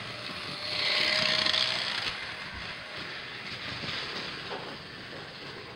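Model steam locomotive running past on its track with a steady running noise, and a louder hiss about a second in that lasts about a second.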